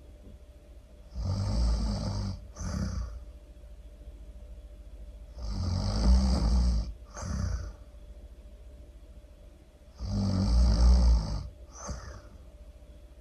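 A person snoring loudly and evenly: three snores about four and a half seconds apart, each a long snore of about a second followed by a shorter one.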